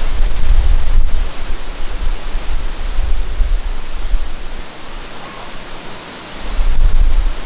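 Steady rushing of flowing stream water, with low wind buffeting on the microphone that eases midway and comes back near the end.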